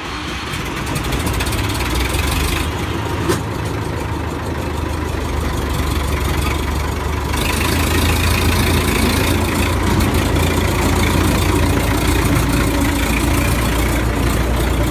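A vehicle's engine running steadily with a low hum, a little louder from about eight seconds in, with a short click about three seconds in.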